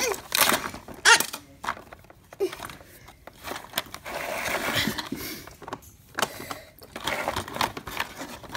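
Hard plastic knocks, clicks and rattles as hands work the hidden door of a toy Batman cave playset and push a small toy car.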